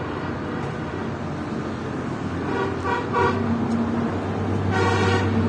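A vehicle horn sounds two short toots and then a longer one, over a steady engine running underneath.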